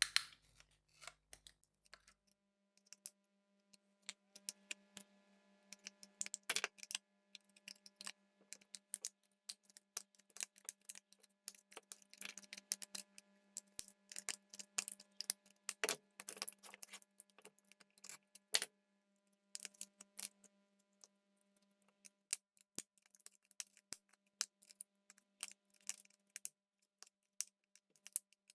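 Hand tools clicking and scraping against the plastic shell of an Apple iPhone XS Max smart battery case as it is pried apart, in many quick, irregular ticks. A faint steady hum runs underneath for much of the time.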